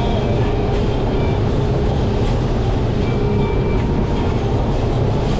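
Outboard engines of a Grady-White 336 Canyon running steadily with the boat under way: a loud, continuous low rumble with faint steady whines above it.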